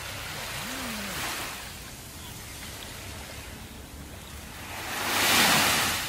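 Small waves washing up onto a sandy beach: a soft wash about a second in, then a louder one that swells and falls away near the end.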